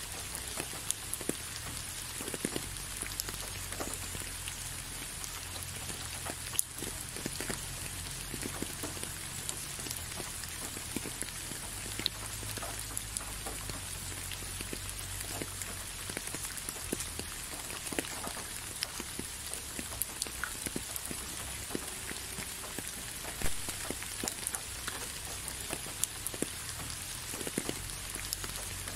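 Steady rain falling: an even hiss with many separate drops ticking through it, over a low rumble.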